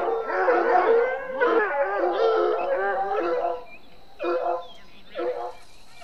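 Canine howling and yipping, several voices overlapping in a dense chorus, which thins after about three and a half seconds to two short separate yelps.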